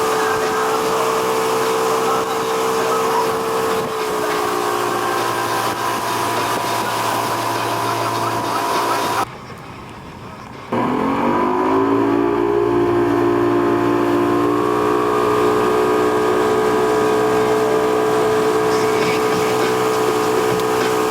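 An engine running at a steady speed; it cuts out briefly near the middle, then comes back rising in pitch and settles at a higher, steady speed.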